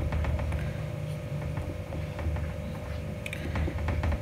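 A palm pressing and patting a battered chicken piece into dry breadcrumbs in a steel plate: a muffled low rumble of the pressing with faint crumb crackles, over a steady hum.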